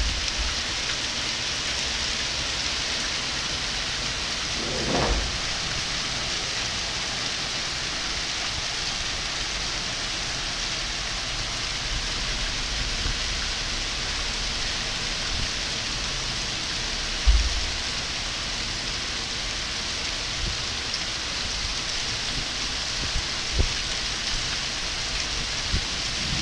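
Heavy rain pouring down in a strong storm, a dense, even hiss. A low thump comes about five seconds in and a stronger one past the middle.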